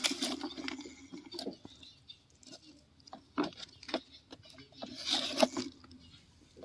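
A plastic toy truck being handled and pushed over dirt and gravel: scattered clicks, taps and short scrapes, with a denser cluster about five seconds in.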